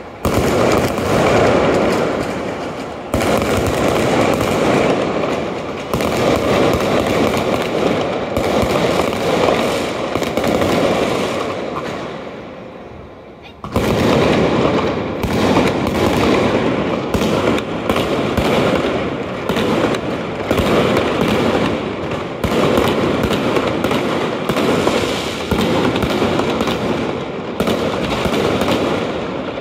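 Fireworks display: a dense, continuous barrage of shell bursts going off one after another. About halfway through the barrage fades to a short lull, then picks up again suddenly.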